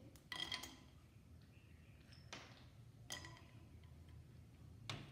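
Peanuts dropped by hand into a nonstick frying pan, landing as faint clicks in four small bursts a second or so apart.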